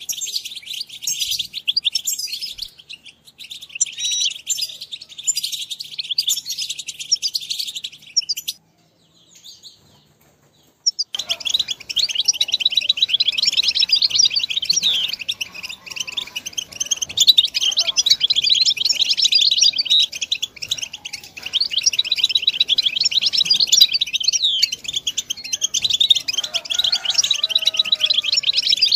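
European goldfinch song: a fast, continuous twittering of short chirps and trills. It stops abruptly about 8 seconds in, pauses for a couple of seconds, then starts again. It is a tutor recording, played so a young goldfinch can learn to sing.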